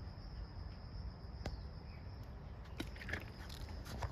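An insect's steady high-pitched call fades out about halfway through. After that come scattered crackling clicks and rustles of leaves and leaf litter, bunched near the end.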